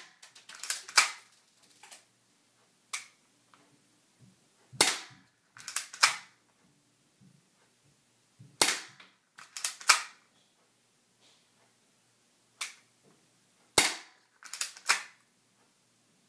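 Spring-powered Smith & Wesson airsoft pistol being fired repeatedly, a sharp snap about every four seconds. Between shots come quicker pairs of lighter clicks as the slide is racked to cock the spring.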